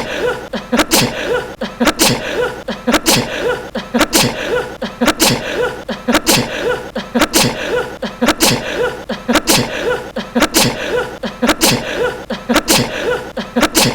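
A young man's short, cute sneeze, looped over and over about once a second.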